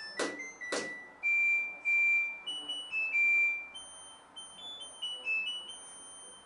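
LG front-loading washing machine's electronic beeper playing its short stepped melody of pure tones, the tune that signals the end of the wash cycle. Two sharp clicks come in the first second.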